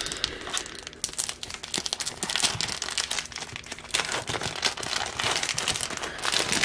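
Foil wrapper of an Upper Deck baseball card pack crinkling and tearing as it is ripped open and handled, a dense run of small crackles and snaps.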